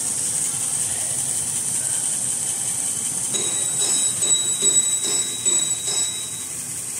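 Maxi-roll toilet tissue cutting machine running: a steady mechanical hiss with a faint high whine. A few soft bumps come from the paper rolls being handled between about three and six seconds in.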